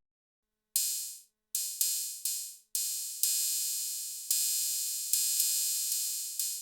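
Arturia DrumBrute Impact's analog open hi-hat played about nine times at an uneven pace, each hit a bright hiss that fades out or is cut short by the next. The colour feature is engaged, adding extra harmonics to the metallic tone.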